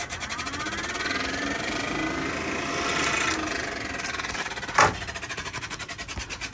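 Electric radiator cooling fan switched on and spinning up with a rising whine, its blades ticking rapidly against something as they turn: the fan is hitting, likely the shroud or a nearby part. A single sharp click about five seconds in.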